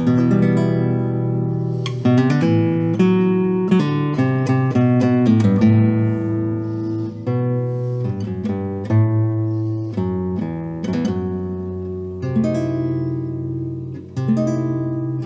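A 1998 Paco Santiago Marín nylon-string guitar played solo, showing off its tone. Ringing chords alternate with quick runs of single notes, and the chords are left to sustain.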